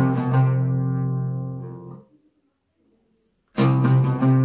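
Oud playing in maqam Nahawand: a low note plucked with the risha rings out and fades over about two seconds. After a silent pause, a second low note is struck near the end.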